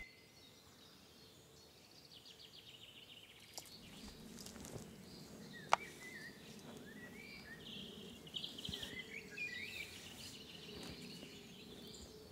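Faint woodland ambience with small birds chirping and trilling, starting about two seconds in; a single sharp click a little before the middle.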